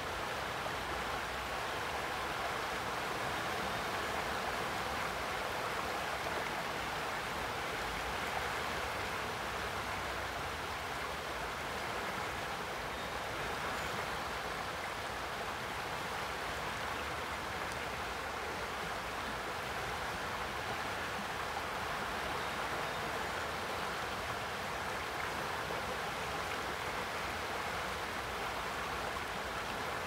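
River water rushing in shallow riffles over a flooded bank and around the trunks of trees standing in the current: a steady, even rush of water.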